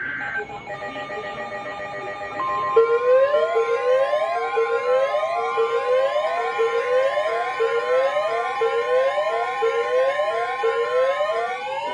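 An electronic siren in a fast repeating yelp, with each sweep rising and dropping, over steady alert tones. The steady tones come in under a second in, and a loud steady high tone joins them about two seconds later, typical of the weather radio's 1050 Hz warning alarm. The siren starts about three seconds in and turns to a slow wail near the end.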